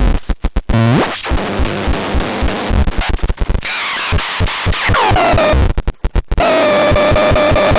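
Synthesizer demo: harsh, noisy electronic sound chopped into rapid stuttering cuts. About five seconds in, a tone sweeps down in pitch and settles into a held buzzy note.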